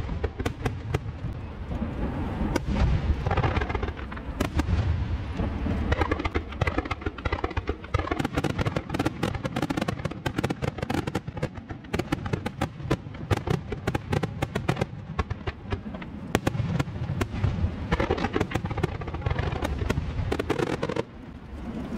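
Aerial fireworks bursting in quick succession: dense rapid crackling with deep bangs mixed in. The crackle stops abruptly near the end.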